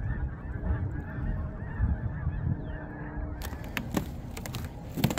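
A large flock of snow geese calling, many overlapping honks at once. A few sharp clicks come in near the end.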